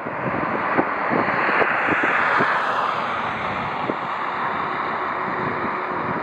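Aircraft engine roar swelling as a plane passes, loudest about two seconds in, with wind buffeting the microphone in short low thumps.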